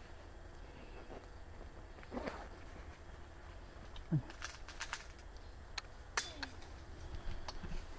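Footsteps on a hiking trail: irregular crunches and clicks, the sharpest about six seconds in, over a steady low rumble.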